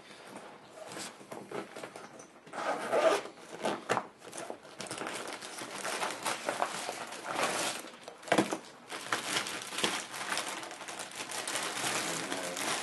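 Plastic packaging crinkling and rustling as a tripod dolly and its carrying case are unwrapped and handled, with one sharp knock about eight seconds in.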